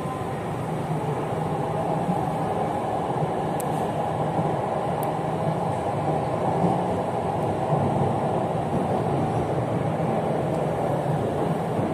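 Jakarta MRT train running steadily, heard from inside the passenger car: a continuous rumble and hum of the moving train.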